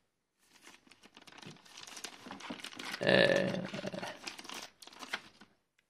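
Packaging crinkling and rustling as it is handled, building to its loudest about three seconds in and then dying away.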